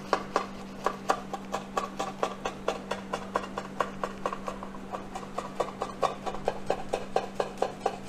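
Knife sawing back and forth through a crisp pan-toasted bread sandwich, the crust crunching in quick even strokes about five a second, over a steady low hum.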